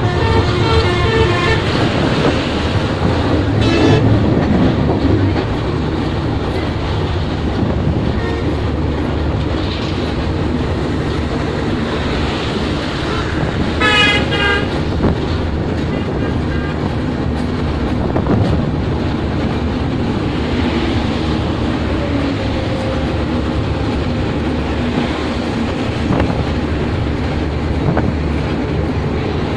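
Steady running noise of an intercity passenger train, heard from the carriage window, with road traffic passing alongside. Horns toot a few times in the first seconds, and there is a clear, short horn blast about halfway through.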